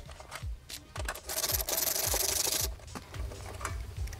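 Rapid rasping clicks of a ratcheting screwdriver backing out a fastener on a plastic exhaust shroud. The rasp starts about a second in and lasts about a second and a half, with a few lighter clicks around it.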